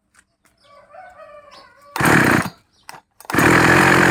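Two-stroke 5200-type (52 cc) chainsaw being started: it fires briefly about halfway through, dies, then catches and runs loud and steady near the end. The saw is hard to start, and the owner says it runs louder than normal, cause not yet found.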